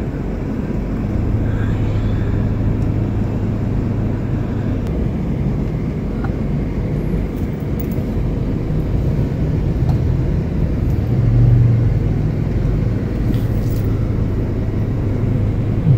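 Car moving slowly, a steady low engine and road rumble heard from inside the cabin.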